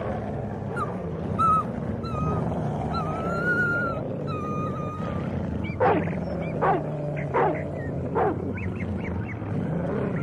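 Dogs growling low and steadily, with thin high whines over the growl for the first few seconds, then four falling yelps about a second apart.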